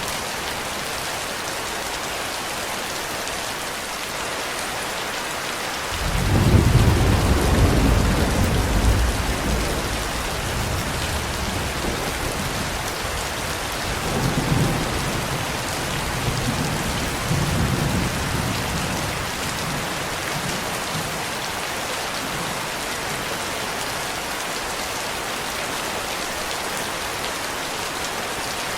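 Steady heavy rain, with a roll of thunder breaking in about six seconds in, loudest for a few seconds, then rumbling on in weaker swells before dying away.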